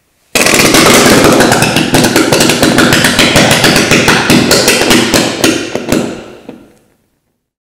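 Cannon-fire reaction: burning ethanol igniting in rapid bursts as potassium permanganate decomposes hydrogen peroxide beneath it, making a loud, fast volley of pops and bangs, several a second. It starts suddenly and dies away over the last second before stopping about seven seconds in.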